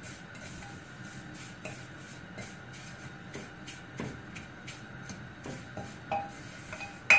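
Metal spoon stirring and scraping vermicelli as it roasts in a little ghee in a metal saucepan: repeated soft scrapes and light clinks against the pan. Near the end there is one sharp clink of the spoon on the pan.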